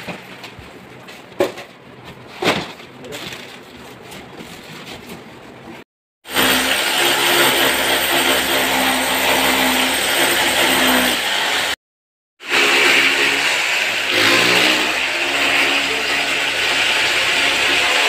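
Electric power drill running at full speed in two long runs of about six seconds each, drilling into the wall to mount the air conditioner; each run cuts off suddenly. Before the drilling there is quieter room noise with two sharp knocks.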